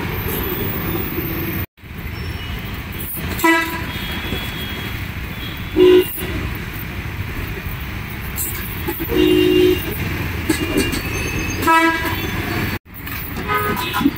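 Steady roadside traffic noise with vehicle horns honking several short times, the longest about nine seconds in. The sound cuts out abruptly for a moment twice.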